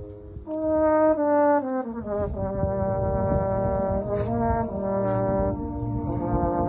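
Military brass band playing. After a short lull, a phrase of notes steps downward, and then the full band holds sustained brass chords.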